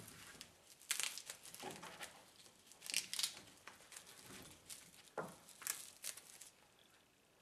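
Fabric strap of a paracord grab handle rustling and scraping as it is worked by hand around a side-by-side's roll-cage bar, in a few short scratchy spells, the loudest about one and three seconds in.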